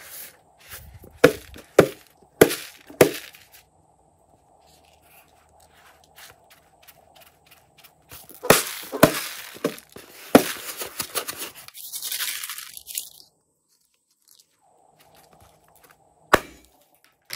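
A series of sharp cracks: four about half a second apart in the first three seconds, then a denser run of cracks and crackling from about eight to thirteen seconds in, and one more crack near the end.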